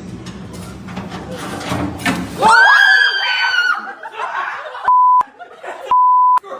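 A loud, high-pitched wavering cry about two and a half seconds in, with laughter-like sounds around it. It is followed by two short, steady, single-pitch beeps of a censor bleep.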